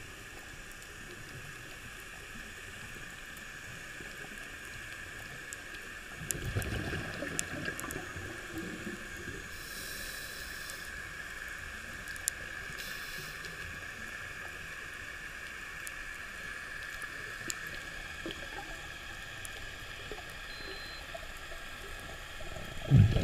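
Underwater sound through a dive camera's housing: a steady muffled hiss, with a gurgling rush of exhaled scuba bubbles from the diver's regulator about six seconds in, fading over a few seconds, and another starting right at the end.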